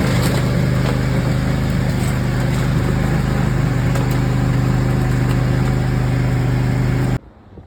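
John Deere lawn tractor's engine running steadily with its snowblower attachment; the sound cuts off abruptly about seven seconds in.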